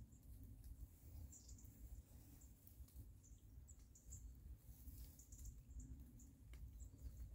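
Near silence: a faint low rumble with scattered brief, faint high-pitched chirps and ticks.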